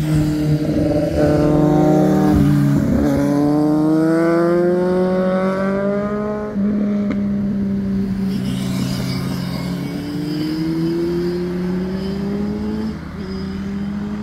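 Sport motorcycle engines accelerating out of a hairpin bend, the engine note climbing steadily in pitch for several seconds, with another rise near the end, over the steadier running of passing traffic.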